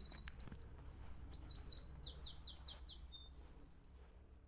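A songbird sings a long run of rapid high chirps and trills, its phrases changing every second or so, and ends in a short buzzy trill. The sound fades out near the end.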